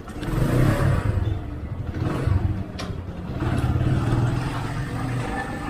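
A motor vehicle's engine running, louder from about half a second in, with a single sharp click near the middle.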